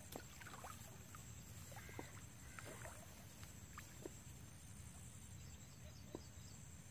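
Faint sloshing of shallow river water around a person wading and handling a fishing line, with a few light ticks spaced about two seconds apart.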